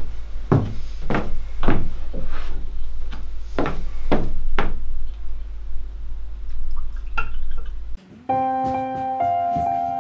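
A run of sharp knocks, about two a second, over a low steady hum, fading out after about five seconds. About eight seconds in, soft piano music begins.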